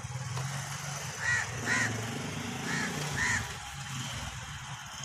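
Crow cawing four times, in two pairs of short harsh calls, over a steady low hum.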